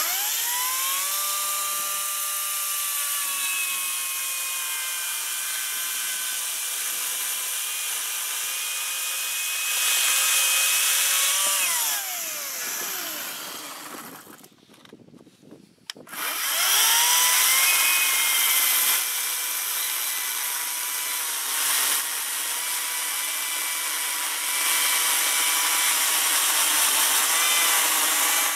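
ECHO 58-volt battery chainsaw cutting through a log. Its electric motor whines up to speed at once, runs steady with a rising and falling pitch as the chain bites the wood, then winds down about 12 seconds in. After a short pause it whines back up about 16 seconds in and cuts again.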